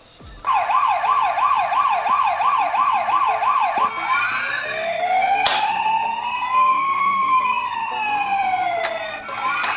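Electronic siren of a toy ambulance miniature car: a fast yelp going up and down about twice a second, changing after about three and a half seconds to a slower wail that rises and falls, with a second siren wailing over it. A single sharp click sounds about halfway through.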